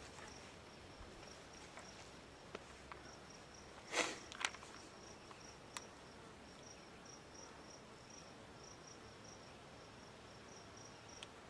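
An insect chirping faintly in a steady run of quick, evenly spaced high-pitched pulses. A brief knock with a rustle comes about four seconds in, followed by a couple of small clicks.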